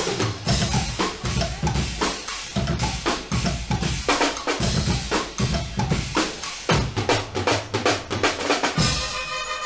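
Guggenmusik band's drum section playing a driving groove on bass drums, snare and drum kit. Near the end the brass section comes in with sustained chords.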